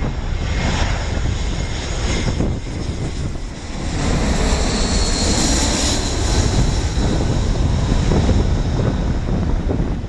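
Jet engines of an Airbus A319-132 (IAE V2500 turbofans) on final approach: a steady roar with a high whine that grows louder about four seconds in as the airliner passes overhead, then stays loud as it flies away toward the runway.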